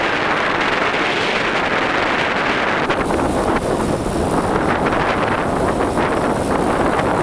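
Steady wind rushing over the microphone of a camera riding along on a moving bicycle.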